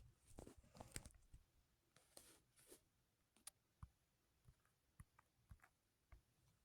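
Faint, irregular clicks and taps, with soft rustling among them in the first three seconds and single clicks spaced out after that.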